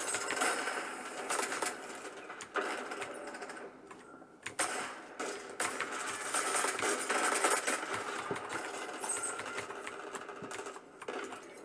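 First-person shooter game audio, mostly rapid gunfire, played through the ROG Strix XG17 portable monitor's small built-in speakers. It sounds thin, with very little bass, and drops briefly about four seconds in.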